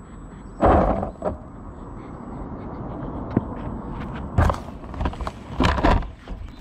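Knocks and thumps on a GoPro strapped to the plastic body shell of a stopped FTX Carnage RC car, over a steady rushing noise. A loud thump comes about half a second in, and more near the end as a hand grabs the shell and lifts the car.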